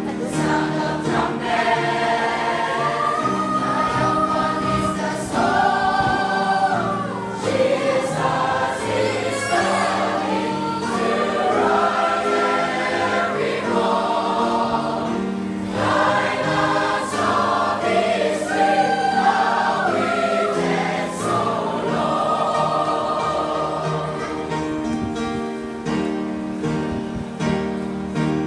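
Church choir singing a sacred piece in several parts, with long held notes.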